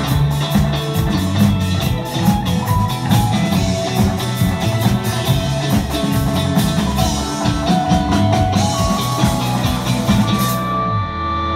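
Rock band playing an instrumental passage of a song, drum kit and electric guitar together. About ten and a half seconds in the drums stop and held guitar notes ring on.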